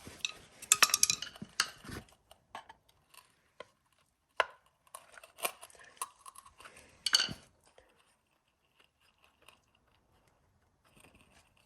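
Parts of a quad's recoil starter being fitted back together by hand: irregular clicks, taps and knocks of small metal parts, busiest in the first second or so, a few sharper knocks in the middle, then almost quiet.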